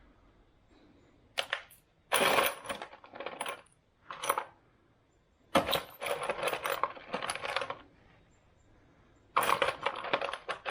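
Handfuls of small metal screws and nails rattling and clinking as a hand rummages through them, in several bursts of a second or two with short pauses between.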